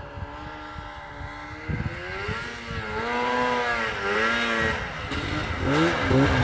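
Arctic Cat F6 snowmobile's two-stroke twin engine revving up and down as the sled rides through deep snow, getting louder as it comes closer, with several quick throttle blips near the end.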